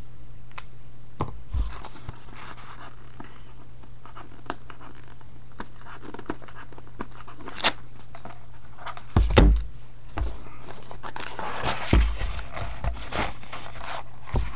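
A Leaf Trinity football card box being opened and its cards handled: scattered scrapes, rustles and clicks, with louder knocks about nine and twelve seconds in. A steady low hum runs underneath.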